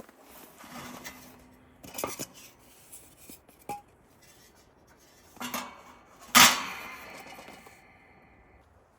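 Metal cooking gear being handled: a few light clinks and knocks, then one loud clang about six and a half seconds in that rings on and fades away.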